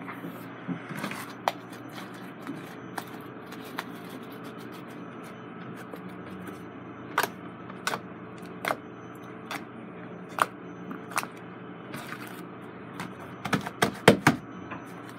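Pink glitter slime being poked, squeezed and pressed flat by hand on a table, giving scattered sharp clicks and pops that come thicker and loudest near the end.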